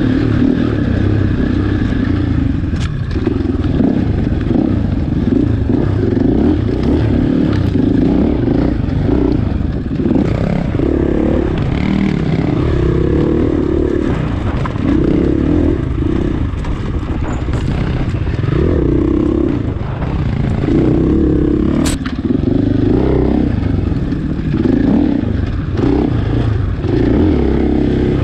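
Four-stroke Husqvarna dirt bike engine running hard, its revs swelling and easing every second or two on rough singletrack, with rattle from the bike over the terrain. A single sharp tick stands out late on.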